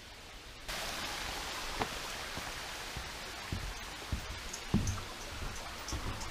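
Rushing water of a woodland stream, a steady hiss that comes in suddenly about a second in. A few dull low thumps sound over it.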